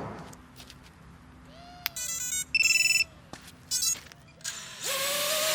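A run of short electronic beeps and steady high tones, like a phone ringtone, starting about two seconds in. Near the end, a tone swells up and holds steady.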